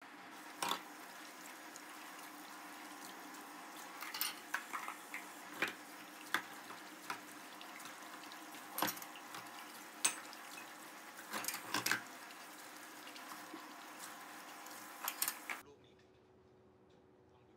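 Kitchen tap running into a sink as dishes are washed by hand, with scattered clinks and knocks of plates and bowls against each other and the sink. The water and clatter cut off suddenly near the end, leaving faint room tone with a low hum.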